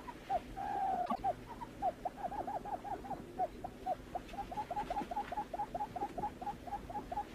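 Barred buttonquail calling: a long series of short, low hooting notes, uneven at first and then about four a second, with one longer quavering note about a second in. It is a call used to lure the bird in.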